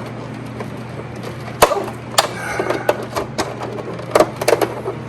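Sharp plastic clacks and knocks, about five in all, as the plastic front cover of a Midea U-shaped window air conditioner is pried and rocked against its snap clips. A steady low hum runs underneath.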